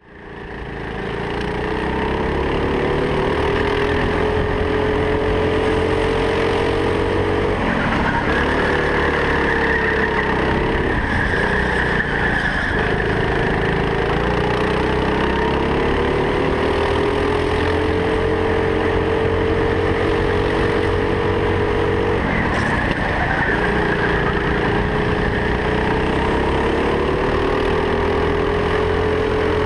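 Go-kart driven flat out on a lap, heard from the seat: it fades in at the start, then a steady whine climbs slowly in pitch along the straights and falls away sharply several times, about 8, 11 and 22 seconds in, as the kart slows for corners.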